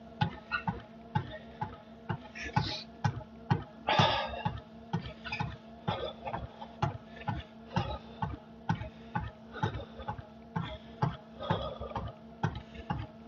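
Steady rhythmic footfalls on a cardio machine during a workout, about two to three thumps a second over the machine's faint steady hum, with a couple of louder rushes of breath.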